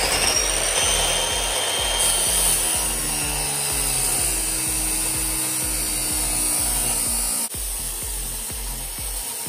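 Delta chop saw with an abrasive cutoff wheel grinding through square metal stock, running on steadily. About seven and a half seconds in it eases off a little.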